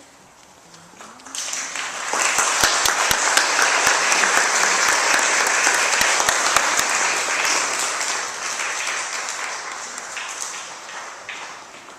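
A congregation applauding: the clapping starts about a second in, swells quickly, then gradually dies away near the end.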